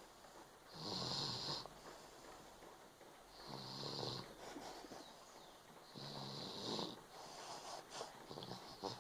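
Snoring in deep sleep: three long snores about two and a half seconds apart, each a low rattling buzz with a breathy hiss. Small clicks and snuffles follow near the end.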